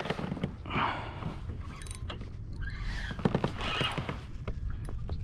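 Spinning reel being cranked to bring in a hooked redfish, with scattered clicks and knocks.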